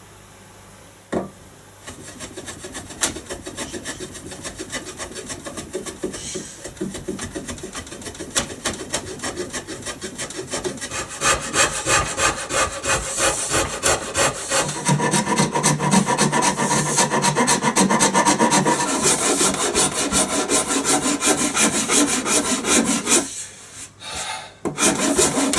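Hand rasp worked in quick back-and-forth strokes across the edge of a wooden bass guitar body blank, shaping it. The rasping grows louder about halfway through and stops shortly before the end, followed by a couple of sharp knocks.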